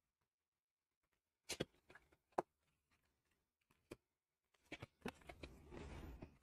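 Tarot cards being drawn from the deck and laid on a cloth. After about a second and a half of near silence come a few soft separate clicks and taps, then a brief card-sliding rustle near the end.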